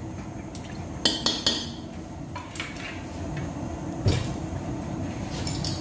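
A few sharp clinks and knocks of kitchenware around a second in and again near two and a half seconds, then a dull thump about four seconds in, as cooking oil is poured into a stainless steel wok.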